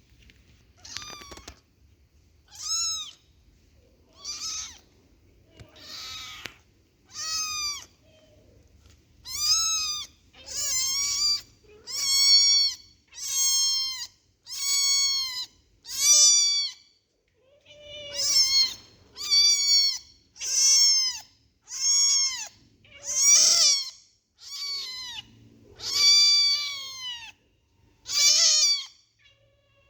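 Kitten mewing over and over, high-pitched calls about one every second or so, each rising and then falling in pitch; the calls grow louder after the first several seconds.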